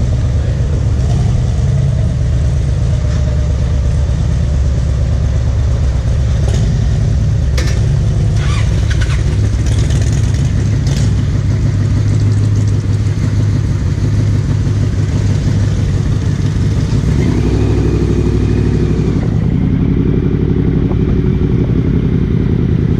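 Large touring motorcycle's engine idling with a steady low rumble. A few sharp clicks and clatters come about a third of the way in. Near the end the sound shifts as the bike moves off.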